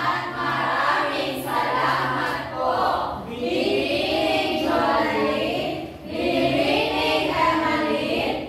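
A group of students singing together in unison, mostly female voices, in phrases with short breaks between them.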